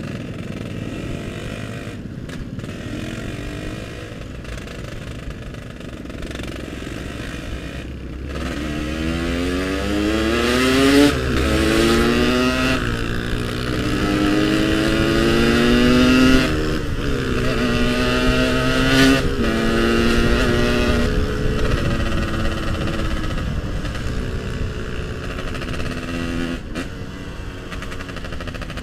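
Yamaha RX-King two-stroke single-cylinder motorcycle engine running at low revs in slow traffic, then, about eight seconds in, revving up through the gears in several rising pulls with a drop at each gear change. It then settles to a steadier speed and eases off near the end.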